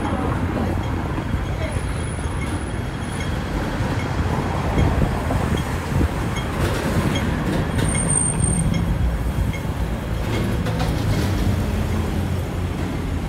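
City street traffic: vehicle engines running and passing as a steady low rumble.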